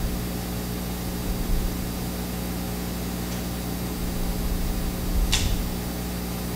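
A steady mechanical hum runs through the room's background, with a faint low rumble and a brief soft rustle about five seconds in.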